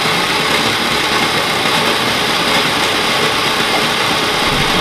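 Kenwood stand mixer running steadily, its beater creaming margarine and caster sugar in the bowl.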